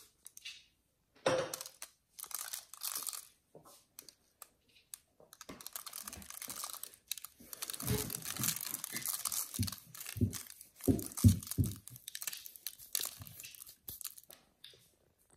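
Parchment paper crinkling and rustling in a baking pan as hands move and arrange unbaked cinnamon rolls, in irregular bursts, with a few dull thumps about ten to twelve seconds in.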